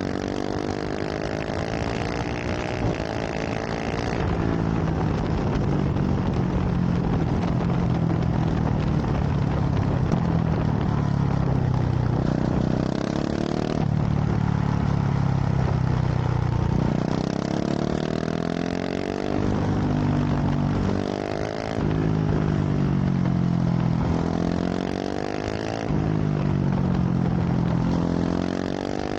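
KTM 690 SMC R's single-cylinder engine through a full LeoVince exhaust, accelerating hard again and again: the pitch climbs, drops at each gear change and climbs again, with a short steadier stretch about halfway through.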